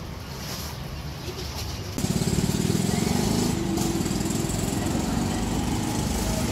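A low steady hum, then about two seconds in a louder small engine running steadily close by, with a rapid, even low pulsing.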